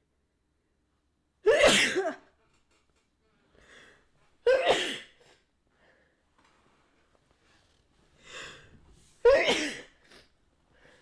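A person sneezing three times, each a sudden loud burst with a voiced 'achoo' that dies away within about half a second. A quieter breath in comes just before the second and third sneezes.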